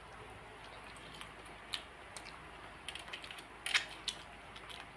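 A person eating by hand: a few faint, sharp clicks and mouth smacks, the loudest about two and four seconds in.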